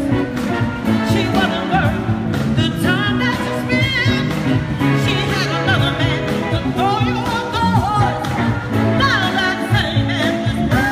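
Live soul band playing at full volume: electric guitars, drums and a horn section, with a voice singing over them.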